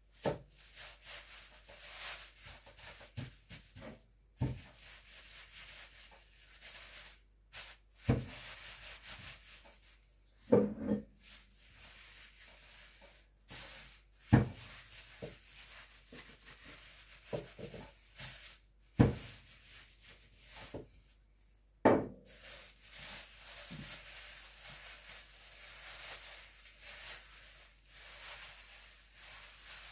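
A clear plastic bag crinkling and rustling as dough is kneaded and scooped inside it on a kitchen counter. About seven sharp knocks and thuds are spread through it, as the dough or a bowl is set down.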